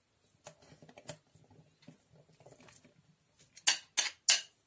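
Metal spoon scraping chopped chicken out of a glass bowl with small soft clicks, then three sharp taps of the spoon against the bowl near the end, knocking the meat off.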